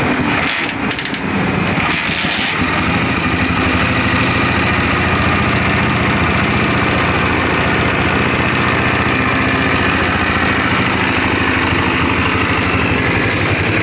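Honda CG 125 single-cylinder four-stroke engine starting, then idling steadily with its tappet cover off, on a check run after the cam gear and cam followers were refitted to cure a cam noise.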